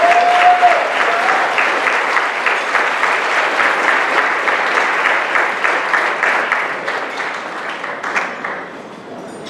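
A large seated audience applauding, a dense patter of many hands clapping that fades away near the end. Someone in the crowd gives a brief held call at the start.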